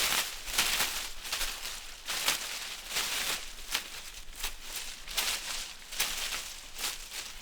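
Tree leaves rustling in the wind, with irregular short surges of dry rustle coming and going several times a second.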